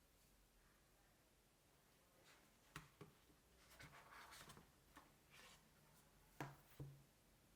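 Faint handling sounds of unboxing: hands moving packaging and small items, starting about two seconds in, with a few sharp clicks and a short stretch of rustling and rubbing between them.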